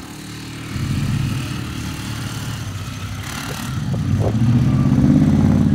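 Four-wheeler ATV engine running, getting louder about four seconds in.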